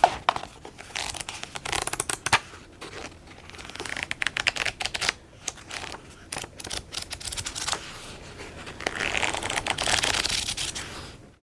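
Pages of a book being flipped through: a long run of quick papery flicks and riffles, with a few longer swishing sweeps of pages.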